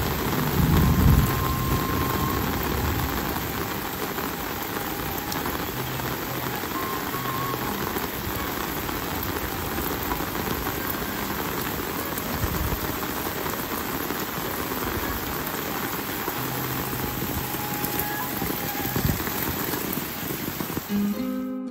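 Steady rainfall, an even hiss. Right at the end it cuts off and plucked zither music begins.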